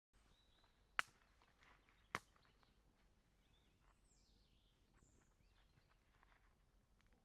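Faint outdoor background broken by two sharp cracks, one about a second in and another about a second later.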